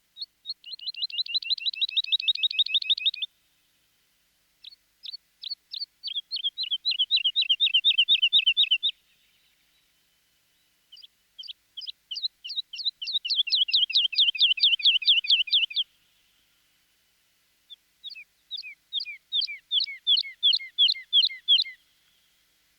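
Eurasian skylark singing: four phrases of rapid, high-pitched trilled notes, each lasting three to five seconds, separated by short pauses.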